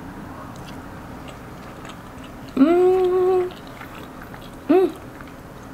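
A woman chewing a mouthful of spaghetti, faintly, and humming a closed-mouth "mmm" of enjoyment about two and a half seconds in, held for about a second. A short rising "mm" follows near the end.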